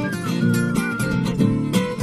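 Instrumental passage of a song: acoustic guitar strummed in a steady rhythm, with a high wavering melody line over the chords.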